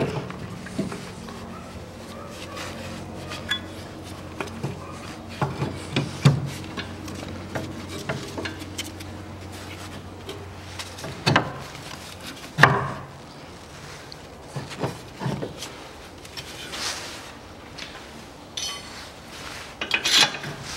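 Metal clinks and knocks as the splined end of a front CV drive shaft is worked into the wheel hub, with two louder knocks a little past halfway.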